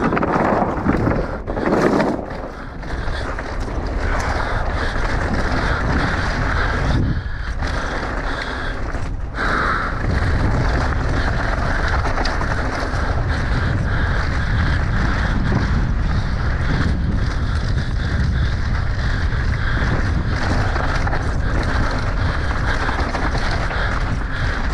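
Mountain bike descending a dry dirt trail at speed: wind rushing over the camera microphone, with the tyres rolling over dirt and the bike clattering over bumps.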